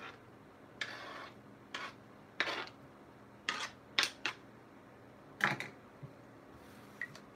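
Kitchen knife scraping chopped vegetables off a flexible plastic cutting board, then the plastic board knocking and flexing as it is handled: a string of short scrapes and clacks, the loudest about five and a half seconds in.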